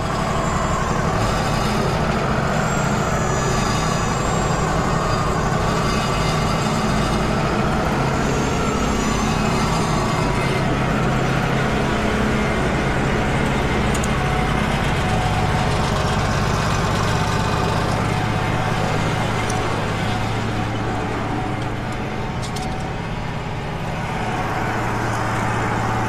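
Wood-Mizer LT35 sawmill's engine running steadily, with no cut being made.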